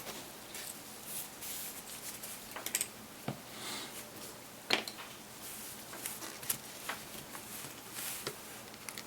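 Scattered light clicks, taps and rustles of small parts and tools being handled on a workbench, the sharpest click a little under five seconds in.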